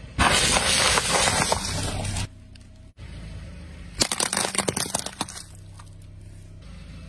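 A car tyre rolls over paper boxes of popcorn with dense crunching and crackling for about two seconds. About four seconds in, a tyre crushes a cluster of small soda cans in a quick run of sharp cracks and crunches. A steady low engine hum runs underneath.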